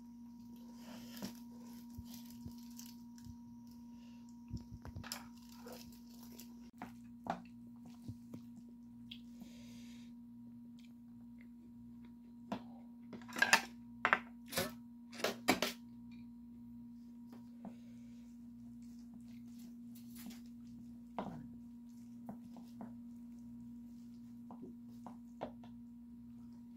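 Wooden spoon scraping and knocking against the bowl while mixing a bowl of soy sauce egg rice, with a burst of louder knocks in the middle. A steady low hum runs underneath throughout.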